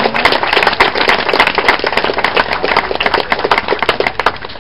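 Audience clapping, a dense crowd of hand claps that dies away near the end.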